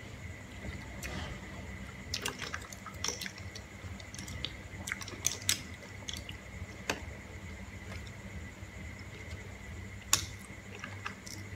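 Cooked green mussel shells clicking and clattering as they are handled, prised open and dropped, with wet sounds of the meat being sucked from the shells; irregular clicks throughout, one louder clack near the end.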